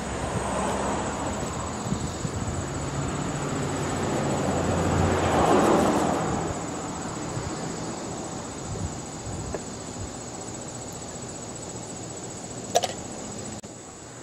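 A steady outdoor background with a high, thin drone, and a rushing sound that swells and fades about five seconds in. Near the end there is one sharp click as a plastic push-pin trim clip is pried out of the trunk-lid liner with a flat-blade screwdriver.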